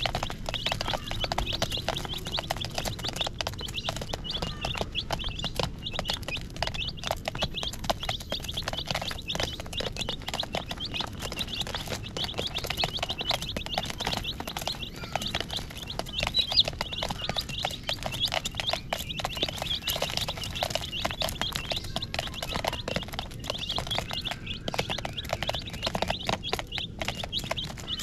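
A brood of baby chicks peeping continuously, many short high-pitched peeps overlapping with no break.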